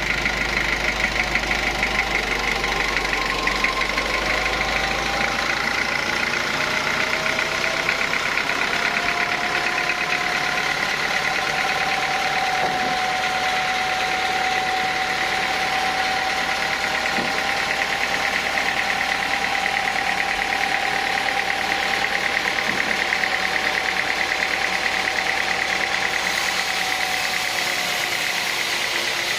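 Sawmill saw running steadily while sawing a teak log, with a fast, even rattle and a whine that rises slightly a few seconds in, holds, and eases off near the end.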